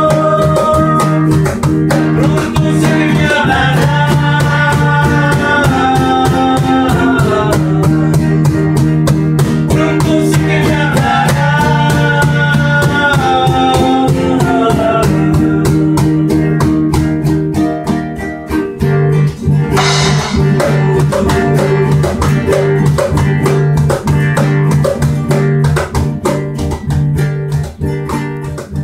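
Instrumental band music: a slow melody with gliding notes over guitar, bass and drum kit, dropping somewhat in level in the second half.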